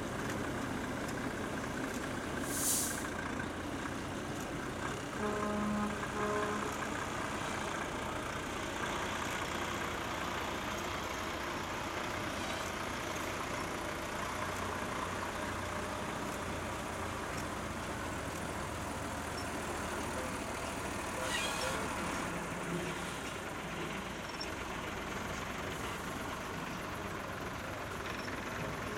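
Heavy diesel trucks and their trailers running slowly past in a line, a steady low engine rumble. A sharp hiss of air brakes comes twice, about three seconds in and about twenty-one seconds in, and a brief pitched tone sounds about five seconds in.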